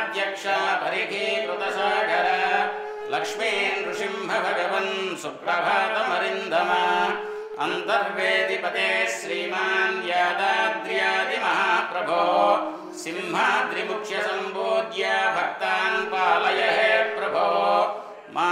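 Devotional hymn sung in a chanting style over a steady drone.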